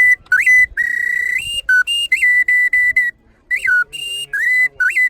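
Hand-made replica pre-Hispanic Mexican whistle played to imitate the song of the cenzontle (mockingbird): a lively string of clear whistled notes, some swooping quickly upward, some held, some short and repeated, with brief gaps between phrases.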